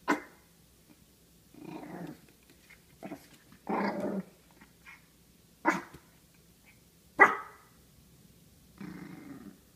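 Small dog, a Pomeranian, giving short sharp barks, the loudest about seven seconds in, alternating with longer, lower growling grumbles.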